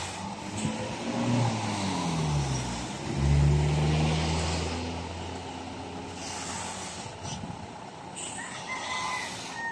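Dump truck's diesel engine running under load while its hydraulic hoist holds the bed tipped and soil slides out. The engine note drops over the first few seconds, revs up sharply and is loudest about three seconds in, then eases off.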